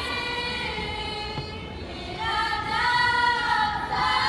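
Group of young female voices singing together in long held notes: one note fades away, then a new one swells about two seconds in and steps up higher near the end.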